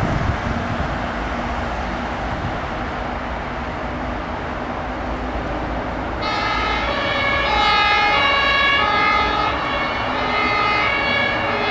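Road and engine rumble of a fire brigade truck driving away, then about halfway through its two-tone emergency siren (German Martinshorn) switches on, alternating between two pitches.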